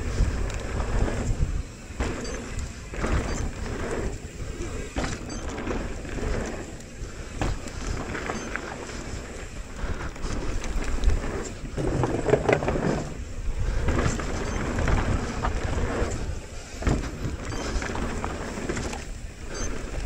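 Downhill mountain bike ridden fast on a dry, dusty trail: wind rushing over the camera microphone, with tyres on loose dirt and the bike rattling and knocking over rough ground.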